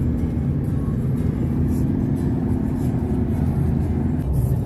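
Car engine and tyre noise heard from inside the cabin while driving on a highway: a steady low rumble with a constant hum, which changes slightly about four seconds in.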